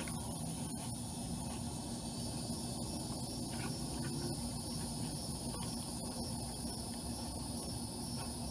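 Steady outdoor ambience: a continuous high-pitched insect drone, with a low steady hum and rumble underneath and a few faint ticks.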